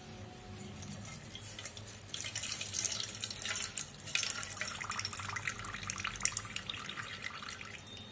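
Whey dripping and trickling into a steel bowl as a cloth bundle of fresh paneer curds is squeezed hard by hand, picking up about two seconds in.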